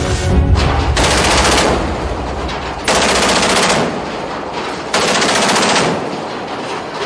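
Rapid-fire machine-gun bursts: three bursts of about a second each, roughly two seconds apart.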